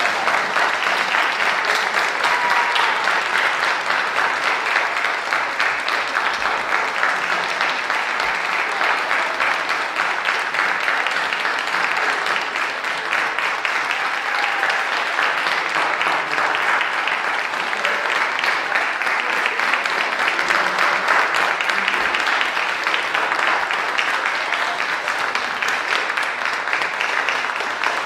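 Audience applauding: dense, steady clapping that keeps up at the same level throughout.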